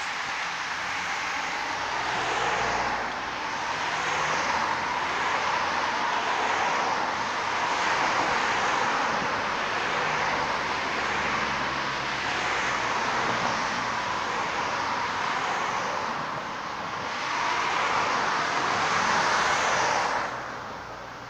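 Road traffic passing close by: a steady rush of tyres and engines that swells as each car goes by and falls away near the end.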